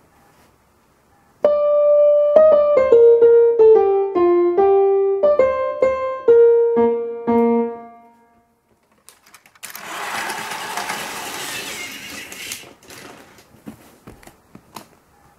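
Short station melody played on an Electone electronic organ with a piano-like voice, a run of notes lasting about six seconds. About two seconds after it ends comes a hissing noise burst of about three seconds, then faint scattered clicks.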